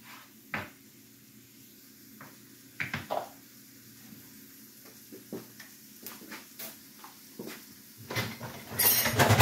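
Kitchen dishes and utensils being handled: scattered light knocks and clinks over a low steady hum, with a louder run of clatter near the end.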